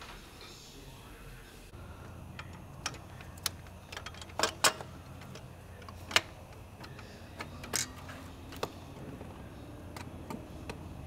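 Scattered light clicks and knocks, about seven over several seconds, as hands work a Volkswagen Jetta's aluminium shift tower into place on the transmission.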